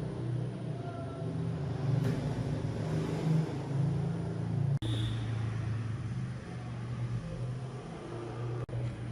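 Electric water pump motor running steadily with a low, even hum. It breaks off for an instant twice and carries straight on.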